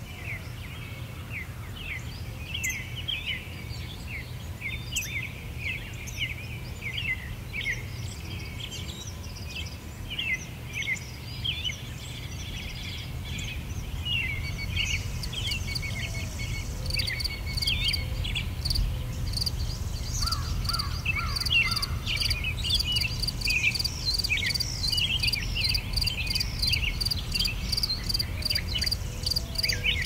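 Many songbirds chirping and singing at once, with short, quick calls overlapping. About halfway through, an insect joins with a steady, rhythmic high-pitched pulsing trill, all over a low steady rumble.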